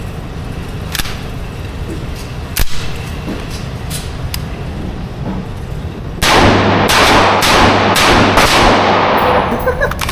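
A string of about five loud gunshots roughly half a second apart, with heavy echo between them, starting about six seconds in. A few fainter single shots come before it.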